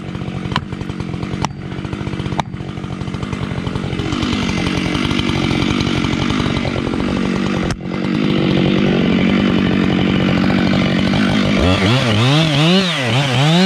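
Husqvarna 592XPG chainsaw running. For the first couple of seconds it holds a steady pitch with sharp knocks about once a second. From about four seconds in it gets louder and coarser, as in a cut. Near the end the engine pitch swings quickly up and down, about once a second.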